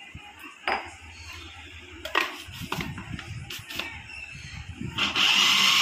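Plastic parts of a food processor knocked and clicked into place as the blade and lid are fitted over raw chicken pieces, then about five seconds in the food processor motor starts with a sudden loud, steady whir as it begins mincing the chicken.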